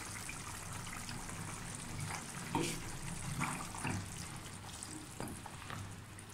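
A spatula moving through chicken and broth in a pressure cooker pot, liquid sloshing, with a few short knocks and scrapes against the pot over a steady hiss.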